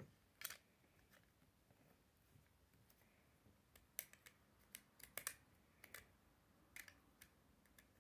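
Faint, scattered plastic clicks of Beyblade spinning-top parts being pressed and twisted together by hand: one click about half a second in, then a run of clicks from about four seconds in.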